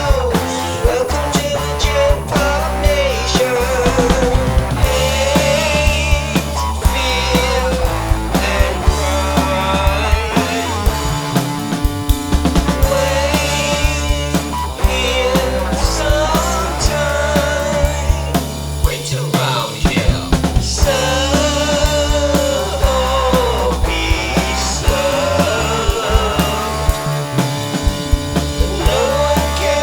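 Rock music with drums and a steady bass line, a wavering melody line running over it.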